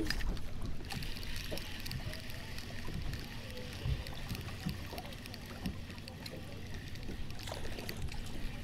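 Wind buffeting the microphone over water lapping against the boat, with faint ticking from a spinning reel being cranked as a hooked crappie is reeled in.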